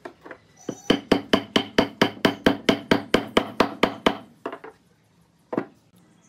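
Small hammer striking a joint between two tree branches: a quick even run of about fifteen sharp blows, around four a second, followed by two single knocks.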